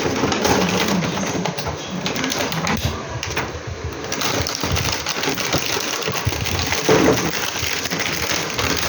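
Plastic toy coin bank being handled: an irregular, continuous run of clicks and rattles.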